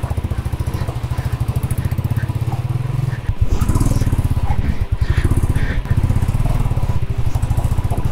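Motorcycle engine running under load on a rough off-road climb, with a steady pulsing beat; after a brief dip about three seconds in it grows louder as the throttle opens.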